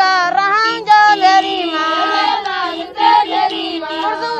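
A song sung in a high voice, with long held notes that bend and glide, over a lower sustained part.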